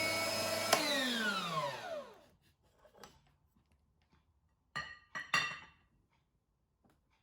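Electric meat grinder motor running, then switched off with a click under a second in, its hum falling in pitch as it spins down to a stop over about a second and a half. A few sharp clinks follow, three close together about five seconds in.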